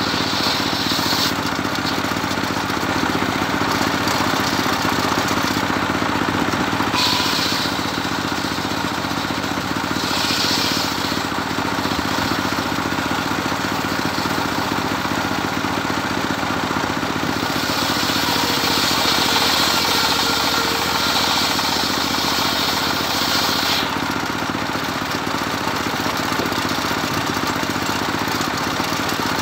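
Homemade engine-driven circular sawbench running steadily, its blade cutting medang timber. A harsher, higher sawing sound comes in several times as the blade bites the wood, the longest cut lasting about six seconds in the second half.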